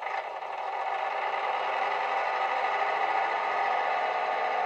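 DCC sound decoder in a model Class 128 diesel multiple unit playing a first-generation DMU diesel engine sound through small speakers; it comes in suddenly and settles to a steady running.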